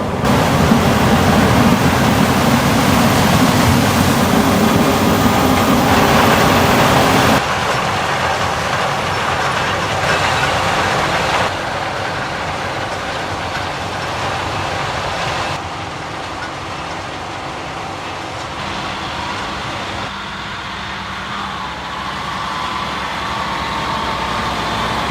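Heavy farm machinery running steadily during a corn harvest: the combine harvester and tractors. The engine and machine noise changes abruptly in loudness and tone four times, loudest in the first seven seconds or so.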